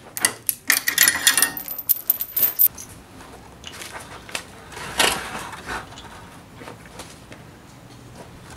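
Metal chain rattling and clinking against a wrought-iron wall hook as it is handled, a quick run of sharp jangles for about two and a half seconds. About five seconds in, a single knock as a wooden door is pulled shut.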